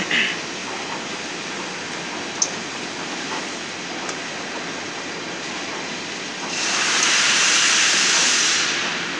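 Doosan DNM 6700 machining center drilling an S355J2 steel ring under flood coolant, a steady noise of spindle, cutting and spraying coolant. About six and a half seconds in, a louder hiss rises and holds for about two and a half seconds before easing off, with a couple of brief ticks earlier.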